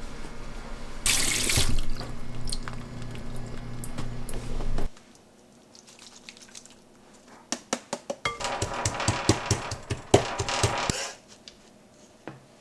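Water running from a kitchen tap into a sink in two short spells, the second with a quick run of sharp clicks and knocks.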